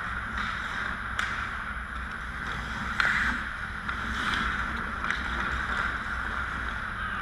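Ice hockey rink sound: skates scraping across the ice with a few sharp clacks of sticks and puck, the loudest about three seconds in, over a steady low rumble.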